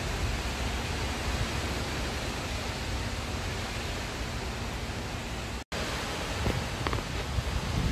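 Strong wind rushing through a large leafy tree and buffeting the microphone: a steady, dense rushing noise with a heavy low rumble. The sound cuts out for an instant about two-thirds of the way through.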